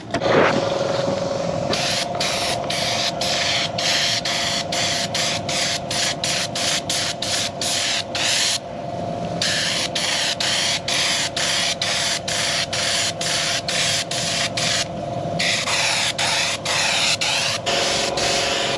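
Hobby spray gun spraying thin leather finisher onto leather seats: a steady hiss broken by quick stops about three times a second, with two longer pauses. A steady hum runs underneath.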